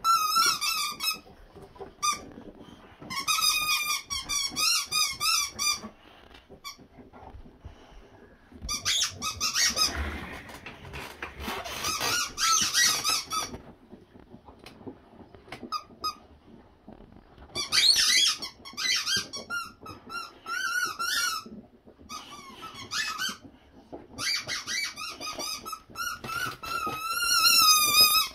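Squeaky rubber chicken toys being chewed by two boxer dogs, giving runs of rapid, wavering high squeaks a few seconds long, with short pauses in between.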